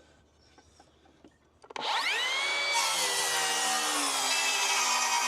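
Handheld circular saw: quiet handling clicks, then the motor starts about two seconds in with a rising whine, and a moment later the blade bites into the rafter lumber and cuts steadily and loudly.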